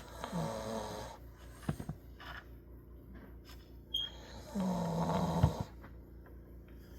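A sleeping dog snoring: two long snores about four seconds apart.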